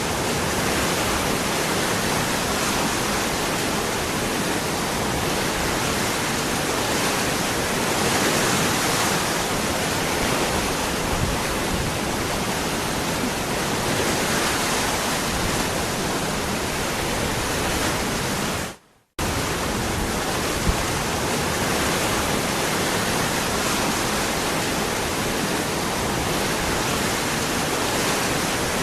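Waterfall rushing, a steady full-range wash of falling water. About two-thirds of the way through it cuts out completely for a fraction of a second, then resumes unchanged.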